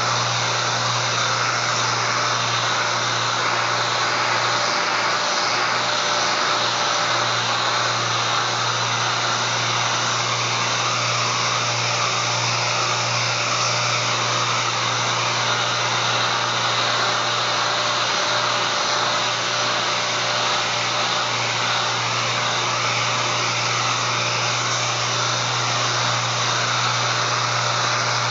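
Pneumatic random orbital sander with dust extraction, running steadily as it sands a solid surface countertop, over a constant low hum.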